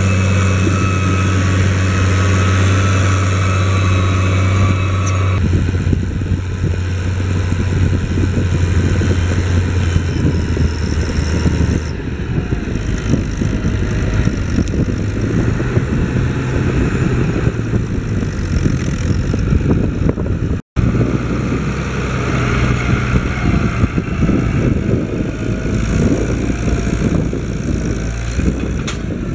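Case IH 1056 XL tractor's six-cylinder diesel engine running steadily under load while pulling a four-furrow plough. It is loudest and most even in the first few seconds, then rougher, and cuts out for an instant about two-thirds of the way in.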